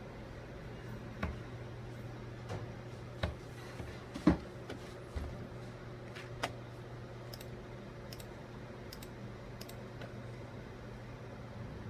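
Scattered sharp clicks and taps at irregular intervals, one louder knock about four seconds in and lighter high clicks later, over a steady low hum.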